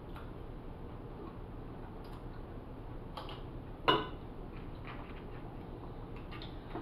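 Quiet chewing with a few scattered clicks of cutlery against a plate as a turkey leg is cut with a knife and fork. The loudest is one sharp clink just before four seconds in.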